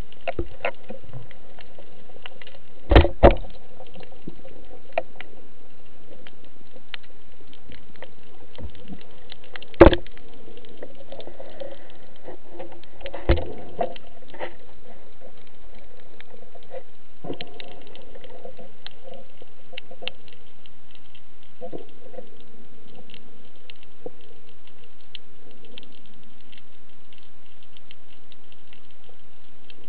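Underwater sound from a diver's camera: a steady faint crackling and ticking, broken by a few sharp knocks, a double knock about three seconds in, the loudest about ten seconds in and a lighter one soon after.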